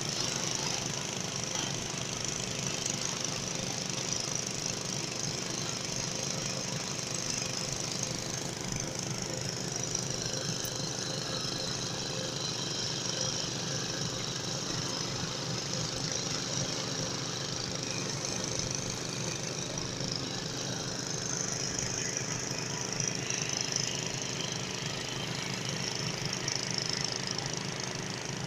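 Motor-driven water pump running steadily as it drains a catfish earthen pond, with a fast, even chugging and a steady high hiss above it.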